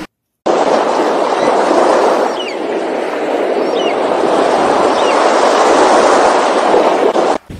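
Steady rush of wind and sea water, with three faint, high, wavering bird calls about a second apart.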